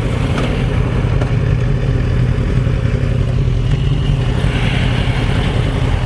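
Motorcycle engine running steadily at an even, unchanging pitch.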